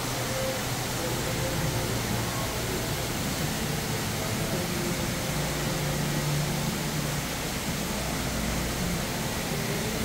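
Indoor store ambience: a steady rushing noise with faint distant voices underneath.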